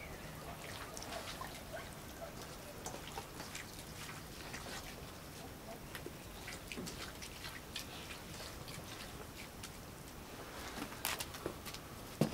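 Faint, scattered small clicks and wet sounds of a Rottweiler eating chicken, rice and vegetables from a hand-held steel bowl. Near the end comes a sharper knock, as of the metal bowl being set down.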